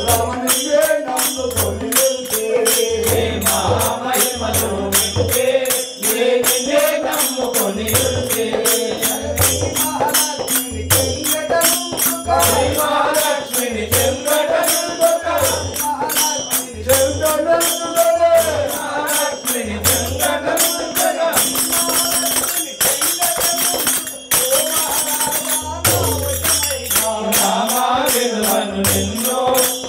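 Telugu devotional keertana sung by a group of voices to tabla, with small hand cymbals striking a steady, even beat throughout.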